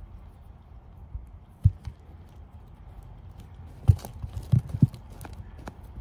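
A hand digging and rummaging through loose potting soil in a fabric grow bag, with soft rustling and four dull thumps, one about a second and a half in and three close together around four to five seconds in.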